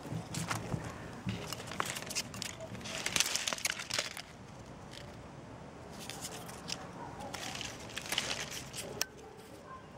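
Dry, frost-killed citrus branches and leaves crackling: dense runs of sharp snaps and crinkles, about one to four seconds in and again about six to nine seconds in.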